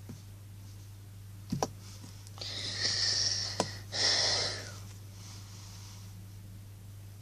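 Two long breathy puffs of air, like a person breathing out heavily, with a couple of small clicks around them over a faint steady hum.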